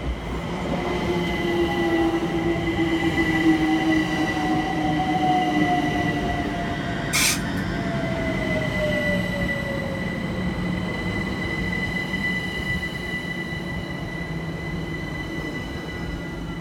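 London Overground Class 378 electric multiple unit slowing into the platform, its motor whine falling in pitch over a rumble from the wheels, with a steady high squeal. A brief hiss about seven seconds in.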